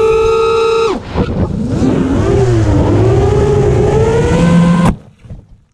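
FPV racing quadcopter's 2300 kV brushless motors and three-blade propellers whining at a high, steady pitch, dipping briefly about a second in, then wavering in pitch before cutting off suddenly near the end. The quad is surging upward under runaway throttle after a mistaken change to the throttle expo, and the sudden stop is the motors being disarmed.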